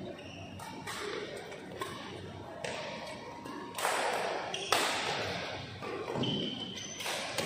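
Badminton rally: rackets strike the shuttlecock with several sharp hits a second or more apart, the loudest about halfway through, in a large echoing hall.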